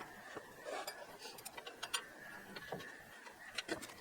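Light, irregular metallic clicks and clinks of small steel hardware (nuts, bolts, washers and a flange bearing) being handled and fitted by hand on a portable sawmill's winch shaft.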